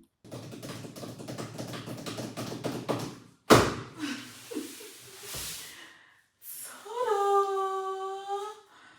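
Rapid clicking and rattling of something being handled, then one loud thump about three and a half seconds in. Near the end, a person's voice holds a single note for about two seconds.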